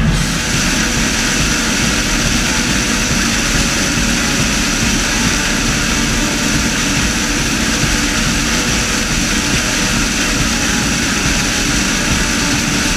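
New Holland CR8070 combine harvester working through standing maize, its corn header taking in the rows: steady machine noise with a thin high whine over it.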